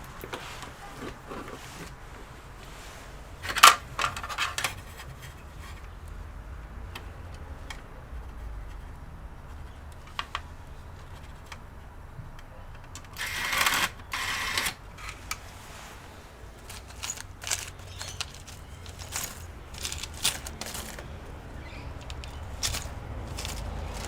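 Hands working on a desktop computer's internals: scattered clicks and taps of plastic and metal parts, one sharp click about four seconds in and a short stretch of scraping and rustling a little past the middle.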